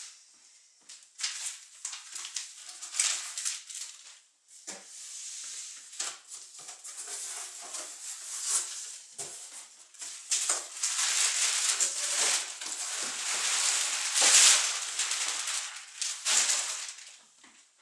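Cardboard box and packing material being handled as a guitar amplifier is pulled out of its shipping box: irregular rustling and scraping with scattered knocks, busiest in the second half.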